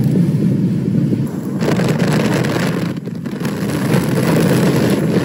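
Tornado winds rushing and buffeting the storm-chase vehicle and its microphone, a loud noise that swells and eases, dipping briefly about a second and a half in and again around three seconds in.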